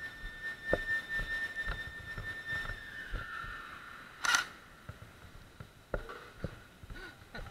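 Game-end siren holding a steady high tone, then winding down and falling in pitch from about three seconds in; it signals that the airsoft game is over. A short noisy burst comes about four seconds in, among light knocks.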